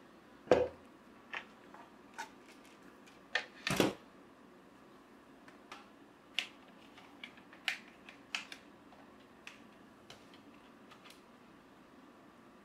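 Scattered clicks and knocks of a power cord and plug being handled at a desk power strip, with two louder knocks about half a second and four seconds in and lighter clicks after that.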